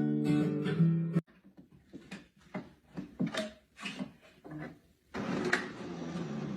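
Guitar music that cuts off abruptly about a second in, followed by a run of short, irregular sounds and then a noisy stretch near the end.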